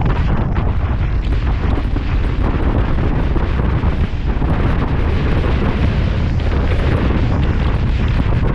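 Steady, loud wind buffeting on the microphone of a camera riding on a moving motorcycle, a continuous low rumble that masks the engine and road noise beneath it.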